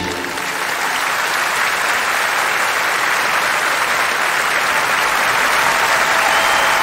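A very large audience applauding: a dense, steady wash of clapping from thousands of hands.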